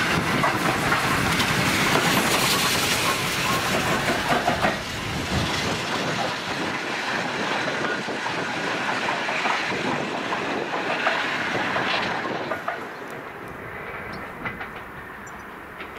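BR Standard Class 2MT 2-6-0 steam locomotive running light engine past at close range, with clicks from its wheels on the track. The noise dies away about twelve seconds in as the engine moves off.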